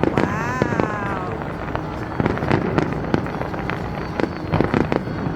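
Fireworks bursting in rapid, irregular bangs and crackles over a continuous rumbling din. About half a second in, a brief high tone rises and falls.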